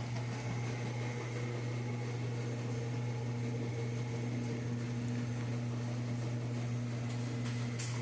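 Several washing machines running mid-wash, a steady electric motor hum over an even wash of noise.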